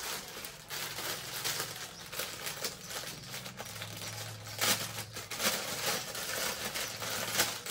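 Clear plastic packaging bag crinkling and rustling in irregular crackles as a folded saree is worked out of it, the sharpest crackles coming a little past halfway and near the end.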